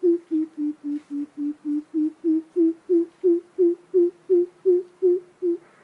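Greater coucal giving its deep hooting call: a long, even series of low 'boop' notes, about three a second. The notes dip slightly in pitch, then climb back, and the series stops shortly before the end.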